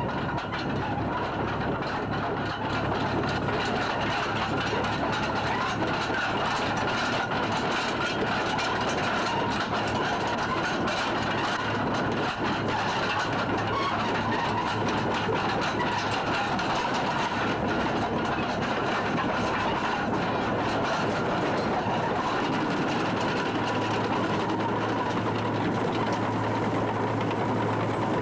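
Tracked lifeboat launching tractor running steadily as it moves the carriage, with a continuous clatter over a low engine hum.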